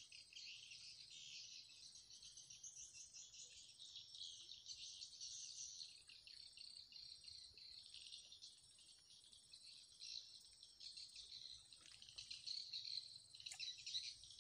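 Faint chorus of insects chirping: a high, fast-pulsing trill that swells and fades. A brief sharp click near the end is the loudest moment.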